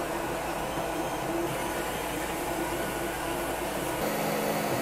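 Tronxy XY-2 Pro 3D printer running mid-print: a steady whir of its fans and motors as the print head lays down the first layer. The sound changes abruptly about four seconds in.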